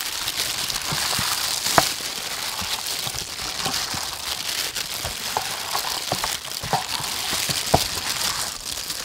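Thin plastic food-prep gloves crinkling as raw chicken drumsticks are rubbed and mixed by hand in a wet marinade and spices, with scattered light clicks and knocks.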